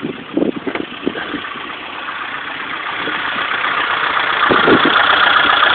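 Supercharged Mini Cooper S 1.6-litre four-cylinder engine idling just after a start, with a steady mechanical noise that grows louder over a few seconds and a few irregular thumps early on and near the end. It is the unexplained noise the owner has heard since buying the car, which he calls an engine knock.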